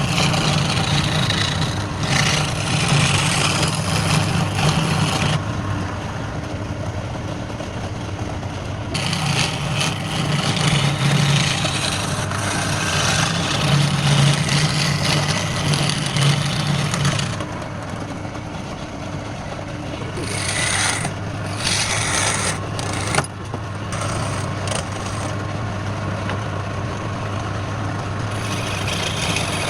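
Wood lathe motor running with a steady hum, while a tool scrapes and cuts the spinning wood in several long stretches, giving a rough hiss that starts and stops.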